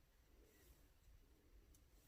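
Near silence: faint room tone with a few very faint clicks.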